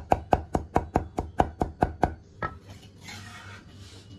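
Chinese cleaver chopping garlic on a round wooden chopping block: about eleven quick, even chops, roughly five a second, mincing the cloves. The chopping stops about two seconds in, and a soft scraping follows near the end.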